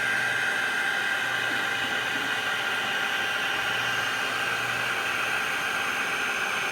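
Bee vacuum running steadily while sucking up bees: a constant rushing hiss with a steady high whine.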